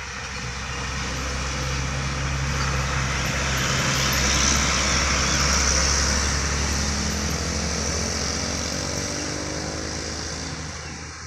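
Heavily loaded cargo truck's engine pulling slowly up a steep, sharp bend at low speed, growing louder as it passes close by, loudest about halfway through, then fading as it drives away.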